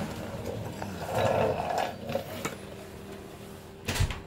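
Handling noise as the camera and the handmade timing peg are carried over to the engine: rustling about a second in, a few light clicks, and a sharp knock near the end, over a steady low hum.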